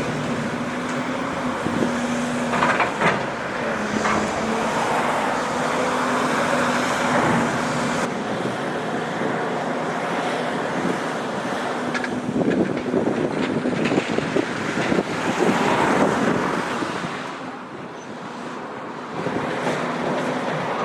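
Steady engine drone with the rumble of passing road traffic, getting louder and rougher for a few seconds past the middle, then briefly quieter near the end.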